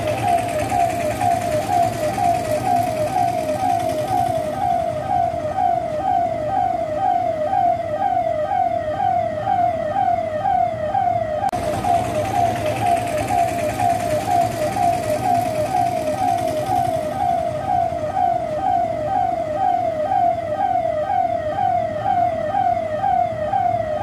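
Police vehicle siren sounding a fast, steady wail that repeats as a falling sweep about twice a second, with vehicle engines running underneath.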